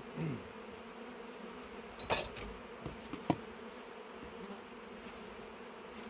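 Honeybees buzzing around an opened hive: a steady hum, with one bee passing close by in a falling pitch near the start. A sharp knock about two seconds in and two light clicks a second later come from a wooden frame being handled.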